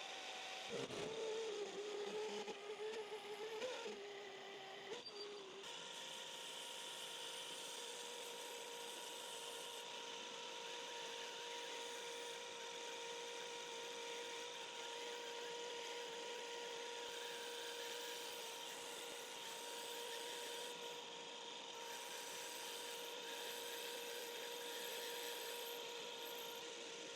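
A power tool running with a steady hum while a metal ferrule is machined, with louder, uneven cutting noise in the first few seconds.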